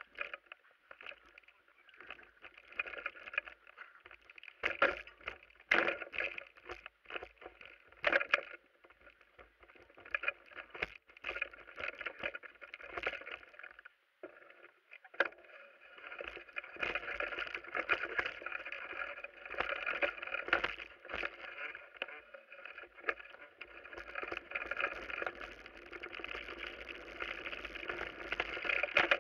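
Mountain bike descending a rough forest trail: tyres on dirt and the bike's frame and parts rattling, with sharp knocks as it hits bumps and roots. The noise becomes louder and steadier about halfway through.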